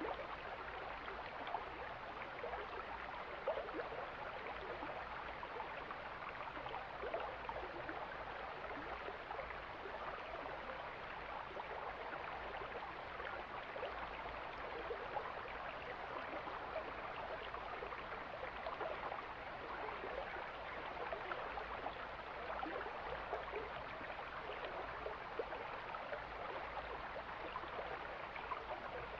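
Mountain stream flowing: a steady rush of running water with small splashes scattered through it.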